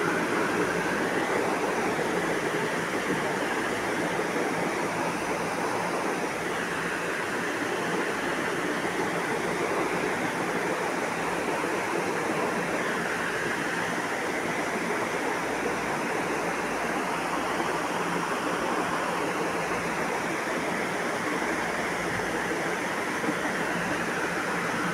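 Steady, unbroken rushing noise with no distinct events.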